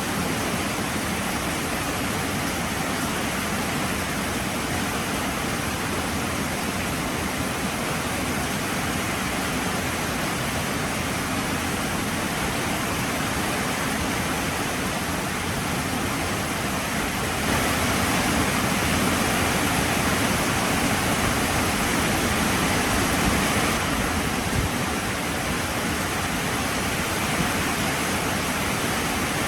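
Heavy rain falling steadily, a dense even hiss, a little louder for several seconds past the middle.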